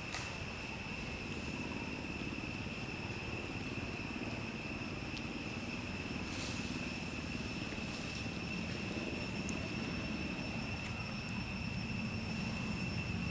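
Steady, continuous high-pitched insect drone with a fainter higher overtone, over a low rumble like distant traffic or an engine. Two faint clicks sound, one at the start and one about six and a half seconds in.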